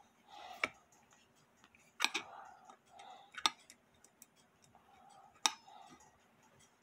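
Small screwdriver working screws out of a brass clock case's back plate: a few sharp, irregular metal clicks, about four strong ones, with fainter ticks between.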